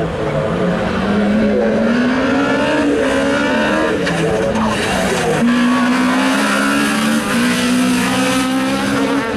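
Honda Civic hatchback rally car's engine revving hard on a tarmac stage, its pitch climbing and dropping with gear changes and lifts, then holding high and steady through the second half.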